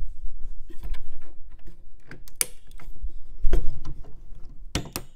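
Intel stock CPU cooler's plastic push-pins being pressed into the motherboard's mounting holes: several sharp clicks as the pins snap home, with rubbing and handling noise between them.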